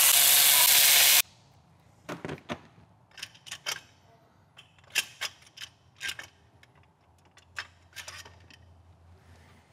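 Milwaukee M12 Fuel cordless ratchet running with a steady whine as it spins out a thermostat housing bolt, stopping suddenly about a second in. After that, scattered light clicks and knocks as the loosened bolts and the plastic thermostat housing are handled.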